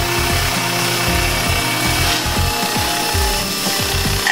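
Tormach CNC mill spindle running a SuperFly carbide-insert fly cutter, with a steady hiss of Fog Buster coolant mist.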